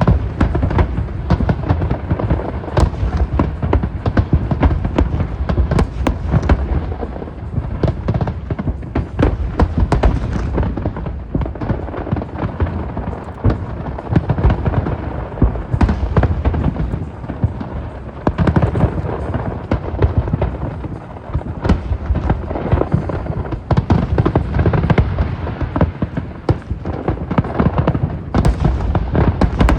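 Aerial fireworks going off in a dense, continuous barrage: many bangs and crackles overlap with no pause, and deep booms run underneath.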